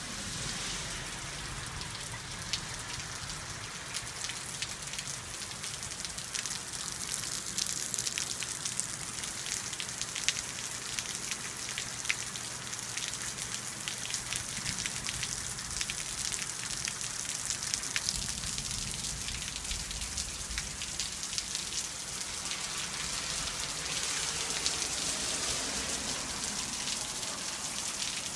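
Steady spring rain falling, a continuous hiss with many individual drops ticking close by.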